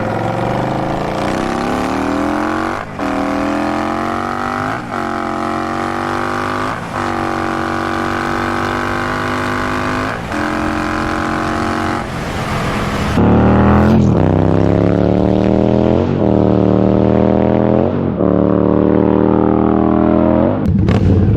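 Indian Scout Bobber's V-twin engine through a GP shorty exhaust, accelerating hard through the gears. The revs climb and drop back at about five upshifts in quick succession. About two-thirds of the way through it gets louder, with several more gear changes.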